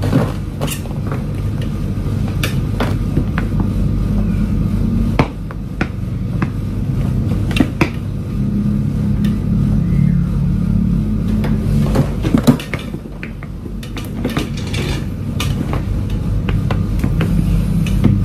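Sneaker soles tapping and scuffing on a tile floor in scattered clicks and knocks, over a steady low hum.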